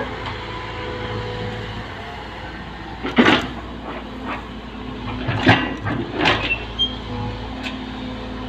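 Excavator's diesel engine running steadily, with loud crunching bursts about three seconds in and again about five to six and a half seconds in as the bucket works loose gravel.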